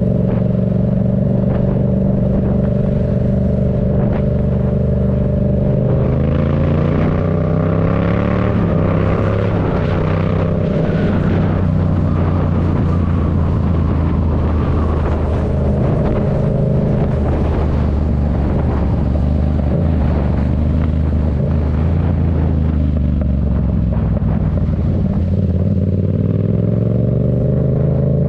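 Yamaha MT-07's 689 cc parallel-twin engine through an aftermarket Black Widow exhaust. It runs at a steady note for the first few seconds, revs up with rising pitch about six seconds in as the bike accelerates, carries on under changing throttle with wind rush, and settles back to a steady note near the end.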